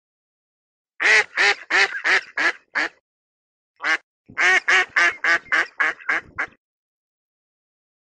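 Mallard ducks quacking: a run of about six loud quacks starting about a second in, a single quack near four seconds, then a faster run of about eight quacks.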